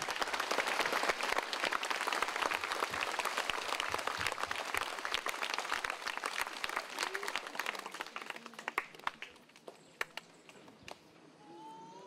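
A crowd applauding, dense clapping that thins out and dies away about eight or nine seconds in, leaving a few scattered claps.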